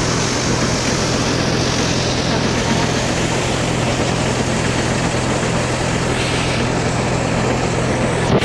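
Paddy thresher running steadily at full speed as bundles of rice straw are fed into its drum, a constant loud mechanical noise over a steady low hum.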